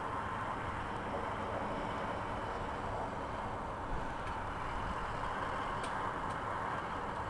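Backhoe loader's diesel engine running steadily while it digs, a continuous mechanical rumble with a few faint clicks in the second half.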